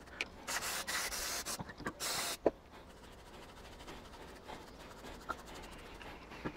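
Stiff paintbrush scrubbing grime off a lawnmower carburettor and fuel-tank unit wet with carb cleaner: a few brisk brushing strokes in the first couple of seconds, then fainter scratching and light clicks.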